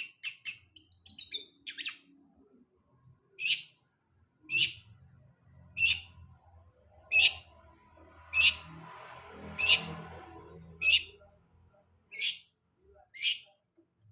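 Long-tailed shrike (cendet) lure recording: short, high calls, a quick cluster at first and then one about every second and a quarter, played to provoke a freshly moulted shrike into song.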